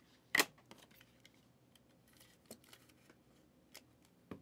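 Trading cards in plastic holders being handled: one sharp click about half a second in, then faint rustling and light taps, with another click near the end.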